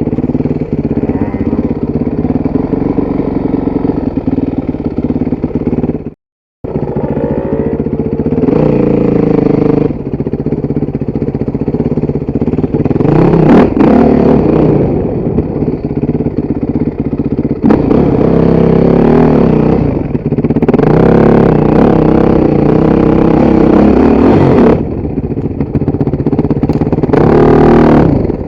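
Motorcycle engines revving up and down on throttle, the pitch rising and falling repeatedly. All sound cuts out for a moment about six seconds in.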